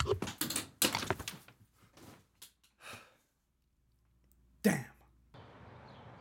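Clothes and hangers being shoved and tossed about in a wardrobe closet: a quick clatter of knocks and rustles for the first second and a half, then a few scattered clicks before it goes quiet.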